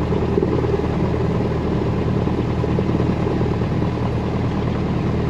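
Cessna 172's piston engine running steadily at low power, a constant drone with a low hum, heard through the pilot's headset audio feed while the aircraft holds lined up on the runway.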